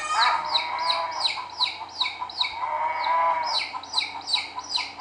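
Chicks peeping: a steady run of high, falling peeps, about three a second, with a short pause a little past halfway. Hens cluck shortly after the start and again about three seconds in.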